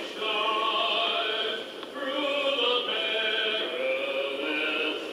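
A man singing the national anthem, holding long notes in phrases of about two seconds each.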